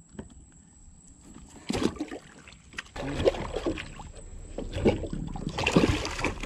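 Handling noise on two plastic kayaks rafted together: knocks against the hulls and rustling close to the microphone. A sharp knock comes about two seconds in, and the knocking and rustling grow denser and louder from about three seconds on.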